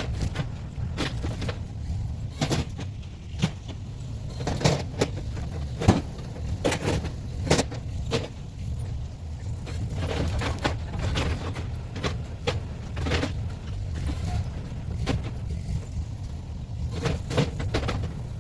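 An engine running steadily at low revs, with irregular knocks and clanks of handled wood or metal over it.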